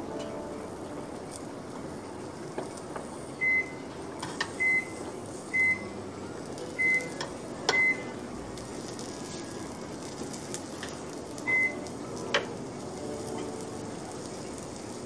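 Six short high electronic beeps, all at one pitch and spaced irregularly, over a steady low hiss. A few sharp clicks of metal tongs on the electric grill's plates come between them.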